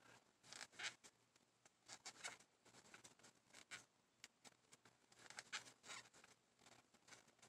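Faint, scattered scratchy squeaks and rustles of dry yarn being pulled through stitches with a crochet hook; the yarn is dry, so it squeaks as it is worked.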